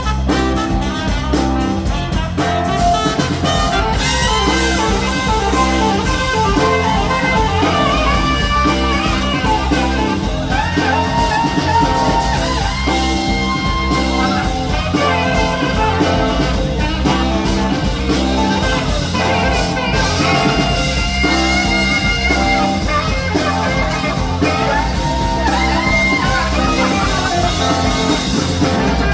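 Live band playing a soul-rock number, with guitar prominent over bass and drum kit.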